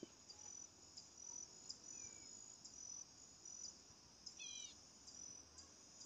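Faint, steady chorus of insects trilling high in the vegetation, a pulsing chirp repeating a couple of times a second. About four and a half seconds in, a brief high call of a few quick falling notes cuts through.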